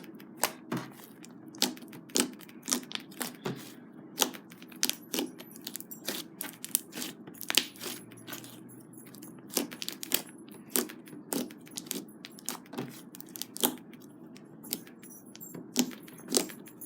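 Blue swirly slime being pressed and poked with fingers, giving sharp, irregular clicking pops about twice a second.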